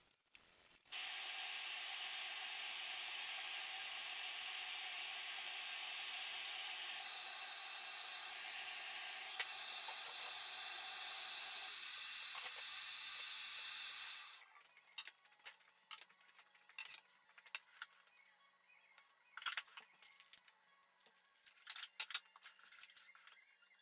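A loud, steady hiss with a faint whine in it cuts off suddenly a little past halfway. After it come scattered light clicks and clinks from a metal tin of finish being handled.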